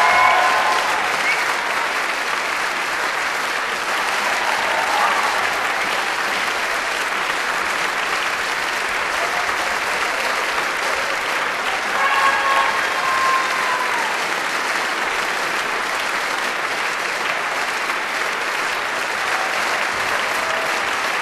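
Audience applauding steadily, with a couple of brief cheers rising above it near the start and again about twelve seconds in.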